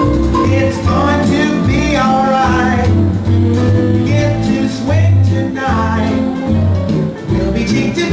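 Recorded song playing: a singer over a bass line.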